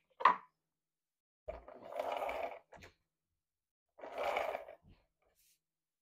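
Handheld adhesive runner drawn across the back of a sheet of scrapbook paper, laying down glue for mounting. There are two strokes of about a second each, each a scratchy rasp, with a sharp click just after the start.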